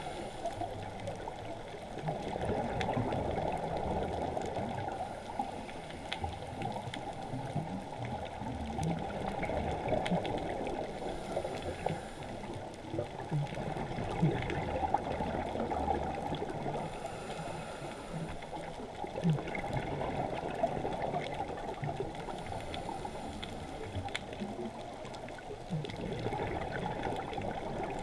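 Muffled underwater noise heard through a GoPro camera's waterproof housing on a scuba dive: a steady rush of water with soft gurgles and low bumps, dull and without any high sounds.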